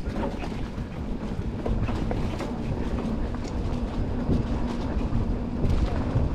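Mountain bike rolling down a rough dirt trail: a steady low rumble of tyres and wind on the bike-mounted microphone, with frequent rattling clicks and knocks from the bike jolting over bumps.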